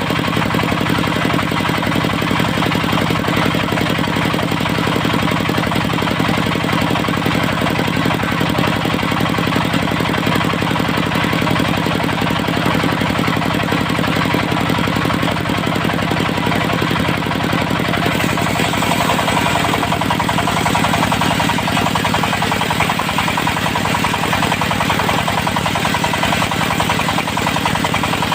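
Diesel engine of a portable circular-saw sawmill running steadily, its tone shifting about eighteen seconds in.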